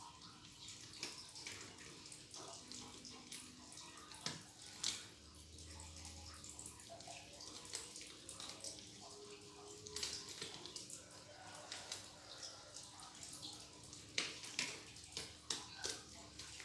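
Medical examination gloves being pulled onto the hands: faint rustling of the glove material with scattered small clicks.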